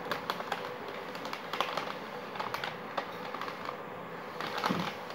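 Thin plastic noodle wrapper crinkling and crackling in irregular clicks as it is handled and turned over, over a faint steady hum.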